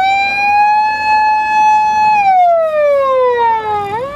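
Electronic siren of a fire-service emergency vehicle wailing. The pitch holds high for about two seconds, slides steadily down, then climbs sharply again near the end.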